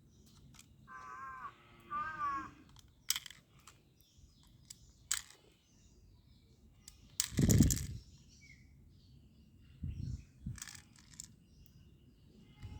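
A crow caws twice, then a few sharp clicks and one loud bang about seven seconds in, followed by a couple of duller thumps.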